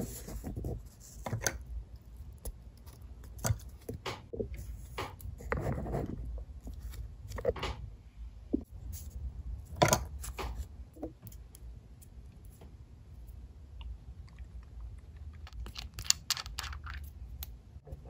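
Clear acrylic stamp block tapping and pressing down on paper as a strawberry stamp is printed over and over, with paper shifting under the hands. Irregular clicks and scuffs, the sharpest about ten seconds in and a quick run of clicks near the end.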